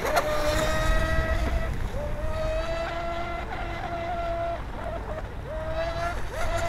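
Electric RC racing boat's brushless motor and propeller running at speed: a steady high whine that dips briefly in pitch about four times, over the rush of spray and wind.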